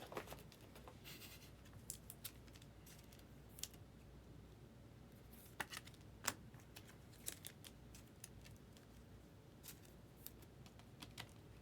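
Near silence with faint, scattered clicks and a few brief scrapes of trading cards and plastic card holders being handled.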